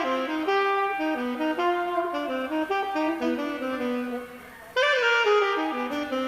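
A saxophone played alone during a sound check: a single line of short notes stepping up and down. Near the end it breaks off briefly, then comes back louder with a note bent in pitch.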